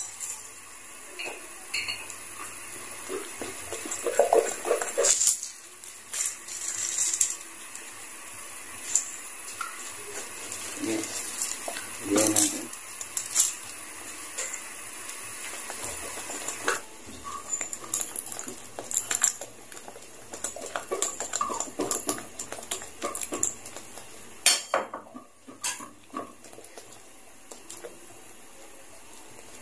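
Metal ladle clinking, knocking and scraping against a large metal wok as a thick sauce is stirred, in irregular clatters. A faint steady high tone runs underneath.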